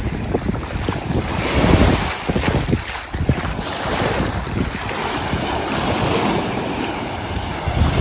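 Wind buffeting the microphone in irregular gusts, over sea waves washing onto the shore.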